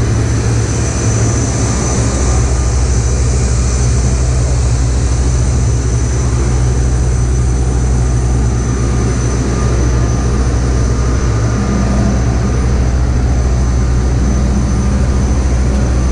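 Steady, unbroken engine drone from an idling apron bus and the airliner's ground equipment, with a thin, steady high whine on top.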